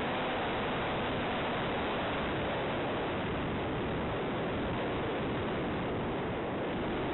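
Steady rushing airflow noise on the onboard camera's microphone of an FPV model plane gliding in for an emergency landing, with no motor tone.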